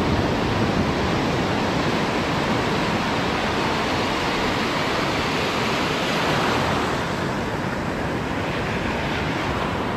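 Ocean surf breaking and washing through the shallows, a steady rush that swells a little about five to seven seconds in.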